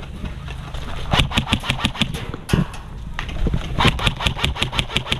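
Airsoft guns firing rapid full-auto bursts, about seven shots a second: one burst about a second in and a longer one starting near four seconds.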